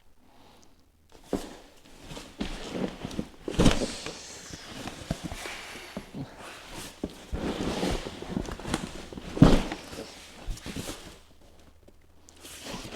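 Irregular thumps, knocks and rustling scrapes of a large cardboard box and its packaging being handled, with two louder knocks about four and nine and a half seconds in.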